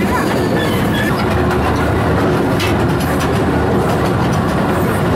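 Steady, loud, low-pitched running noise of a moving vehicle.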